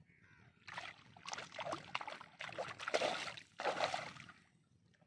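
A hooked mrigal carp thrashing at the surface on a hand line, splashing the water in a string of quick bursts through the middle few seconds.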